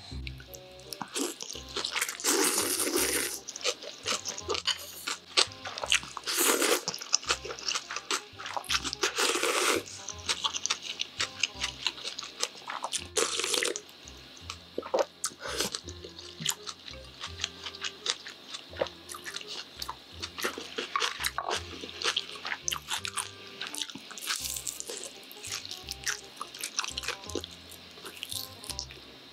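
Spicy cold naengmyeon noodles and broth slurped loudly about four times in the first half, then wet chewing and small clicks. Quiet background music with a bass line plays underneath.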